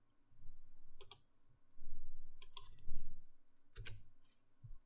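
A few sharp clicks of a computer mouse and keyboard: one about a second in, a close pair in the middle and another near the end, with faint low thuds between them.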